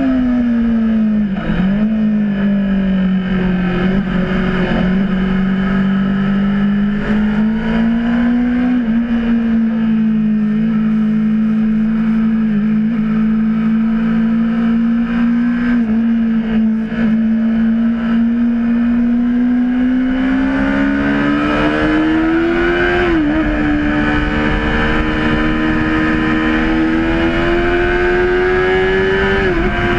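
Honda CBR600RR's inline-four engine heard from on board under way: the revs fall in the first couple of seconds, hold steady for a long stretch, then climb, with short dips in pitch from gear changes about two-thirds in and near the end.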